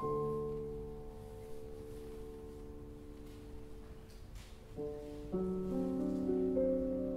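Grand piano being played: a chord struck and left to ring, slowly fading for several seconds, then fresh chords about five seconds in with a few melody notes over them.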